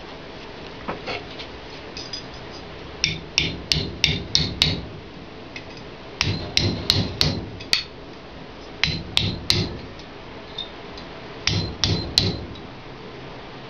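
Sharp metal-on-metal blows with a bright ring, in four quick bursts of three to six strikes, about three a second: the edge of a handmade vanadium-steel knife being struck against steel to test its toughness.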